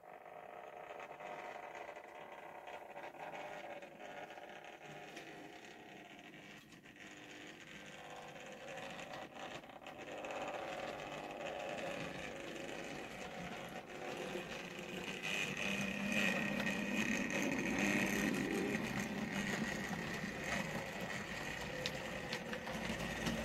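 OO gauge model steam locomotive and its coaches running along the track: a steady electric-motor whir with wheel rumble, growing louder as the train comes close and loudest about two-thirds of the way through.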